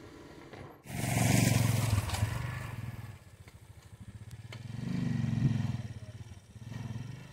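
Small motorcycle engine running close by, revving in swells: a loud one about a second in, another around five seconds, and a shorter one near the end.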